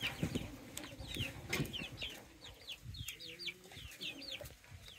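Chickens calling: many short, high peeps falling in pitch, several a second, with a few faint knocks.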